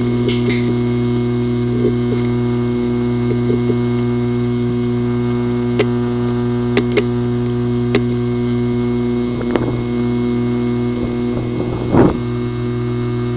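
Hard drive with a physically damaged disk assembly running with a steady buzzing hum, a few sharp clicks about six to eight seconds in, and a louder knock near the end.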